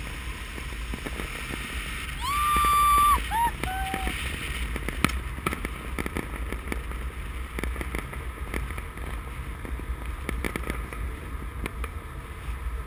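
Wind rushing over the camera microphone of a paraglider in flight, a steady low rumble. About two seconds in, a person gives a loud high whoop held for about a second, followed by two short falling calls. Scattered faint clicks follow.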